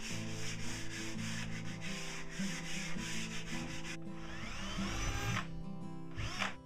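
A rhythmic rasping noise, then about four seconds in a cordless drill spins up with a rising whine as it bores into a plywood wall, stops, and whirs up briefly again near the end.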